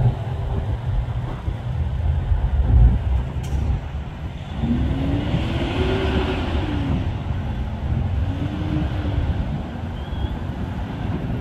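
Aerobatic plane's engine heard from the ground, its pitch rising and falling in a long arch about four seconds in and again more briefly near the end as the plane climbs and tumbles, over a steady low rumble.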